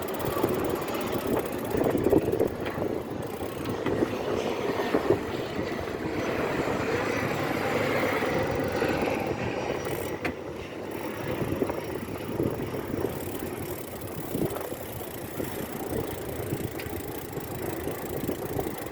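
Ride noise from a moving bicycle: a steady, fluctuating rush of wind on the microphone and road traffic.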